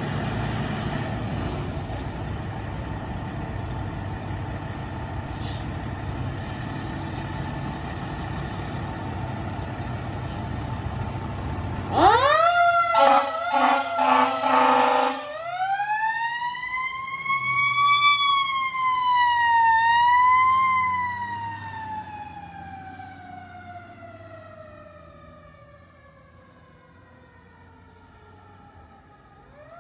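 Fire engine leaving its station, with a steady low diesel rumble for about twelve seconds. Then the siren cuts in with a quick rise and a run of short, loud air horn blasts. A mechanical siren follows, winding up to a high wail, dipping once, then slowly winding down and fading as the truck drives away.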